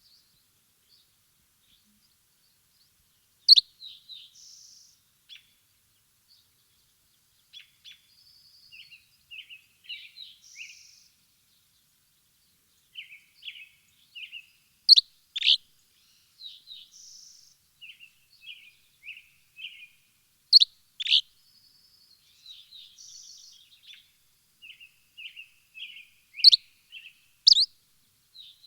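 Songbirds chirping and twittering: softer runs of twittering, broken every few seconds by loud sharp chirps, several of them coming in pairs.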